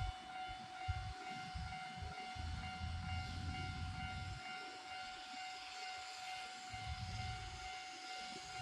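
Japanese level-crossing alarm ringing with a steady high tone, over faint hiss and low rumbles that come and go.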